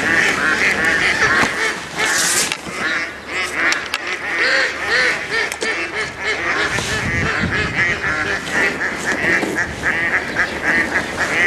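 A flock of waterfowl calling constantly, many short honking calls overlapping one another.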